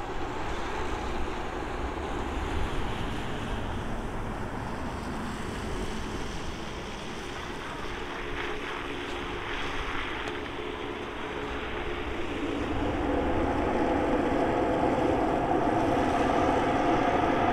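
Twin Pratt & Whitney Canada PW306D turbofans of a Cessna Citation Latitude business jet landing: a steady jet rush with an engine whine that grows clearly louder about two-thirds of the way through as the jet rolls out on the runway.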